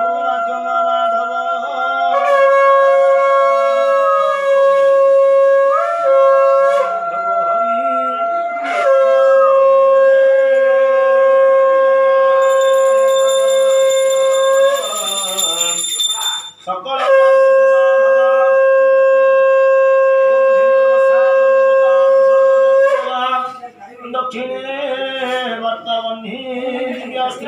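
Conch shell (shankha) blown in a series of long held notes, each several seconds long with short breaks between, sounded during a Hindu puja.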